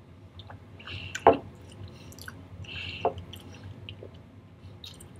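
Mouth sounds of a man tasting a sip of whisky: working it round the mouth and smacking the lips, with two sharper smacks, one about a second in and one about three seconds in.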